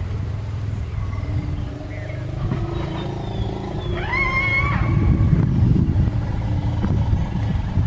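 Asian elephants dust bathing over a steady low rumble, with rough low rustling and thuds as dust is flung, loudest in the second half. About four seconds in, a short high squeak-like call rises sharply and is held for under a second.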